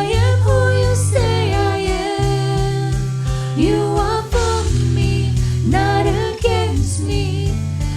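Worship song playing: a sung melody over sustained keyboard chords with a steady bass, the chords changing every second or two.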